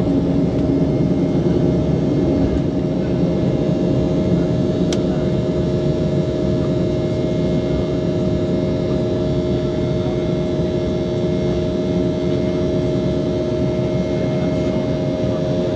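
Cabin noise of an Embraer E195 under takeoff power: its twin GE CF34-10E turbofan engines give a steady rushing noise with a few steady tones running through it. A single faint click comes about five seconds in.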